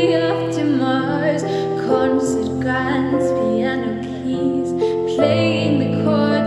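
Slow ballad music: a female singer's voice holding and bending long notes over sustained chords, which change twice.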